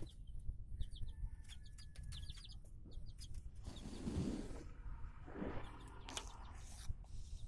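Chickens clucking, with short high peeps and scattered small clicks.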